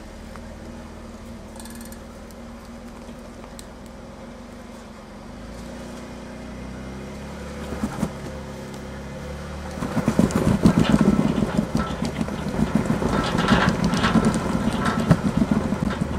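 Jeep Wrangler JK engine running at low revs as it crawls up a rock ledge, building up under load, then from about ten seconds in a louder, irregular clatter and scraping of tires and underbody on rock.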